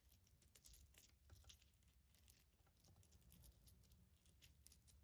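Near silence with faint, scattered light clicks and ticks of a small stainless-steel flick chain fidget being worked in the fingers.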